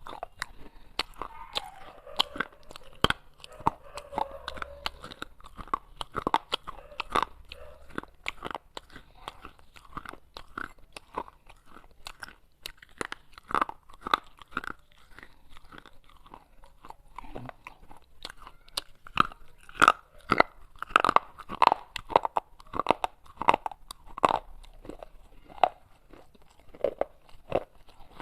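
Close-up crunching of baked clay pot pieces being bitten and chewed: a dense, irregular run of sharp crunches that grows louder for a stretch in the second half.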